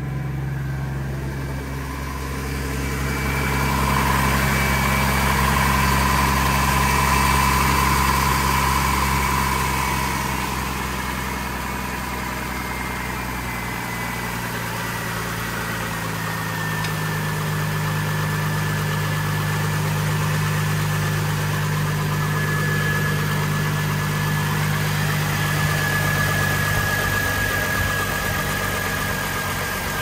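2003 Chevrolet Trailblazer's 4.2-litre inline-six idling steadily just after a water pump replacement, with a faint whine that slowly falls in pitch; no grinding, and the owner judges that it sounds good.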